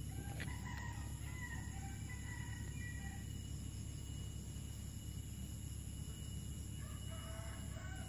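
A rooster crowing faintly, one call of about three seconds, then a shorter call near the end, over a steady drone of insects.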